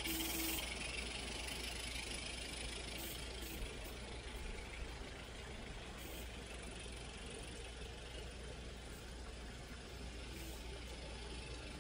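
Live-steam model locomotive hissing as the train runs off into the distance, the hiss fading over the first few seconds, over a steady low hum.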